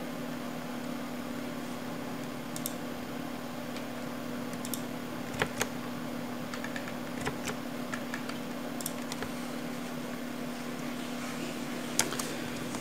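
Scattered single clicks of a computer keyboard and mouse, about ten of them, spread irregularly, over a steady low hum.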